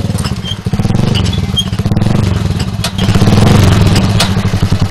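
Dirt bike's engine running as the motorcycle rides up, its rapid exhaust beat growing louder about three seconds in.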